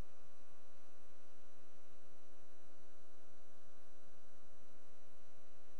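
Steady electrical mains hum with many evenly spaced overtones, unchanging throughout.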